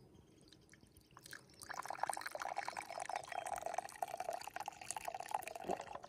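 Coffee pouring from a thermos flask into a ceramic cup in a steady stream. It starts about two seconds in and stops just before the end.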